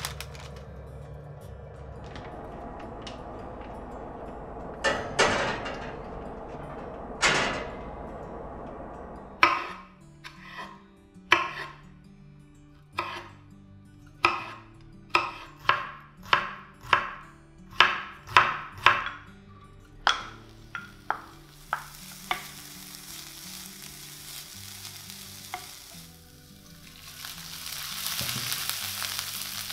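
A crisp oven-baked fried dough stick (youtiao) crackling as it is pressed, with two loud crunches. Then a kitchen knife chopping pickled mustard greens on a cutting board, a run of sharp chops that speed up to nearly two a second. Near the end, chopped mustard greens start sizzling as they are dry-fried and stirred in a pan, over soft background music.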